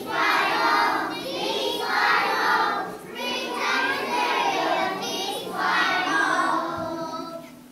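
A group of preschool children singing a song together in four phrases with short breaks between them.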